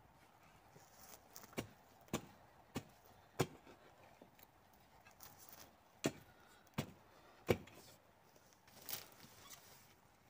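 A hand hoe chopping into loose soil, working compost into the earth. Sharp strikes come in two runs, four starting about a second and a half in and three more after about six seconds. A longer, softer stroke follows near the end.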